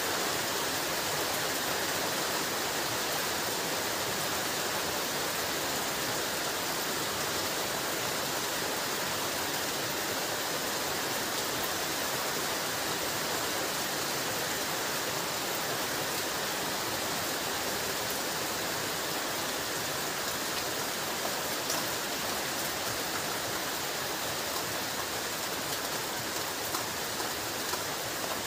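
Heavy rain falling steadily: a dense, even hiss of rain with a few sharper drop ticks, louder near the end.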